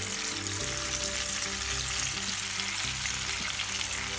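Sliced onions and oil sizzling in a frying pan with a fine crackle, with ground chili, turmeric, cumin and salt just heaped on top: the spice base (masala) starting to fry.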